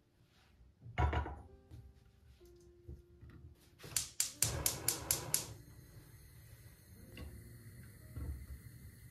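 A saucepan set down on a gas hob's cast-iron grate with a clunk, then the burner's spark igniter clicking rapidly, about five clicks a second for a second and a half, with gas hissing until the flame catches.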